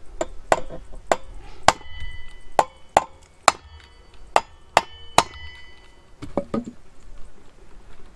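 Hammer striking a steel punch held on the flywheel hub of a STIHL 028 AVS chainsaw, about nine sharp metallic blows with a ringing note between them, then a couple of duller knocks. It is the tapping used to free the flywheel from the crankshaft once its nut is off.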